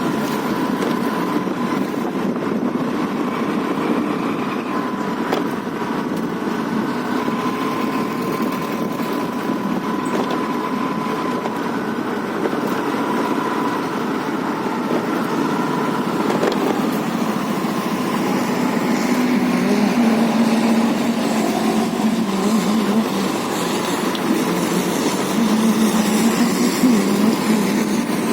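Steady motor-vehicle road noise: a two-wheeler's engine running while riding along a road, with traffic around it.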